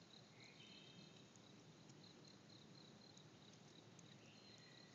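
Near silence: faint outdoor ambience with a faint, high, evenly pulsing insect chirp.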